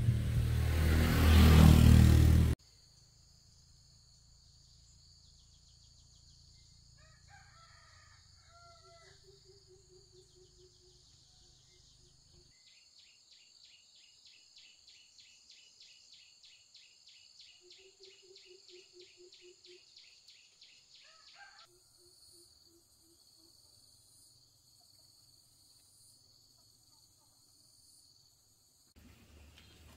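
Music cuts off abruptly about two and a half seconds in, leaving faint rural ambience: a steady high hiss, a faint rooster crowing once, and scattered short bird calls and a rapid chirping trill.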